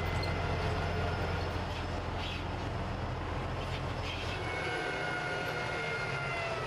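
M1A2 Abrams tank running, its gas-turbine engine giving a steady high whine over a low rumble. The rumble drops away about four and a half seconds in, and the whine slides a little lower near the end.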